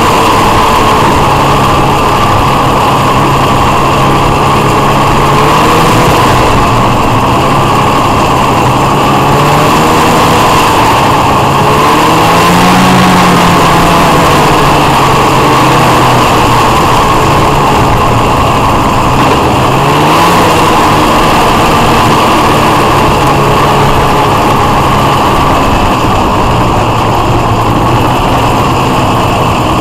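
Polaris Indy 440 snowmobile's two-stroke twin engine running loud and steady while riding, its pitch rising and falling several times as the throttle is worked.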